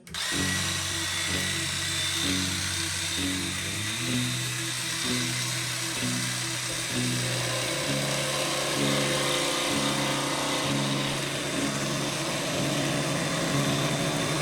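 DeWalt DCS335N cordless barrel-grip jigsaw cutting MDF along a traced line, running steadily after starting abruptly, with background music under it.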